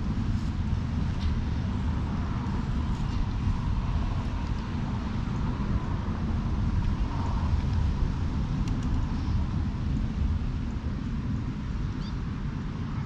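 Wind buffeting the microphone: a steady, uneven low rumble, with a few faint clicks.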